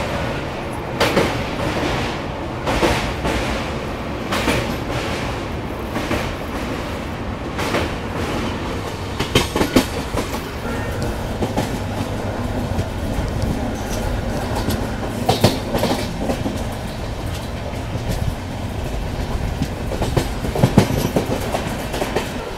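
Passenger train running at speed, heard from on board: a steady rumble of the coach with wheels clacking sharply over rail joints at uneven intervals, several clacks coming close together about halfway through and again near the end.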